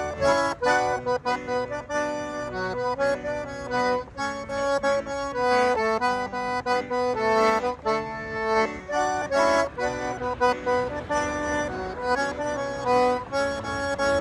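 Accordion music: a melody of short notes played over chords, without singing.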